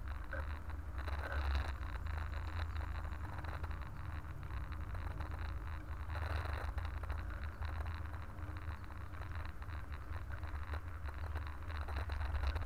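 Bicycle riding noise on pavement: a steady low rumble on the camera's microphone, with light rattling and scraping from the bike.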